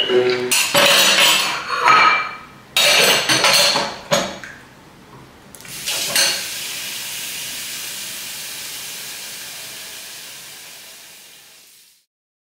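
Clinks and clatter of kitchenware, then a kitchen faucet running a thin stream into a stainless steel sink, a steady hiss that fades out near the end.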